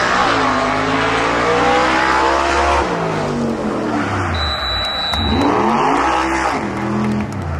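A motor vehicle engine running loud and close, its pitch falling and rising as it revs and accelerates through the gears.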